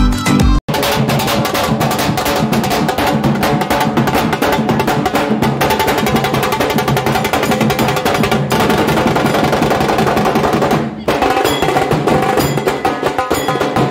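Dhol drums of a street drum troupe, played with sticks in a fast, dense rhythm. In the first moment, recorded music with a pulsing bass beat cuts off abruptly before the drumming comes in.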